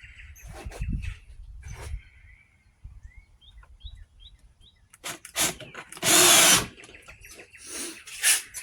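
Power drill driving screws into a wooden countertop in short bursts. The loudest burst comes about six seconds in, with clicks and handling knocks around it.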